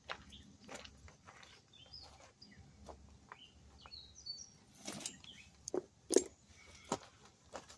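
Small birds chirping, with a few sharp knocks and clinks, the loudest about six seconds in.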